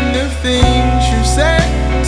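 Background song: a sung melody over guitar, bass and drums with a steady beat.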